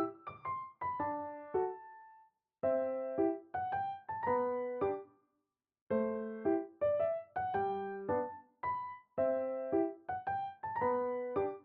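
Solo piano background music: gentle single notes and chords in short phrases, each dying away, with brief silent gaps between phrases.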